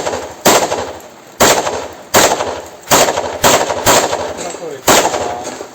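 Handgun fired in a string of about eight shots at uneven intervals, roughly half a second to a second apart, each with a ringing echo trailing after it.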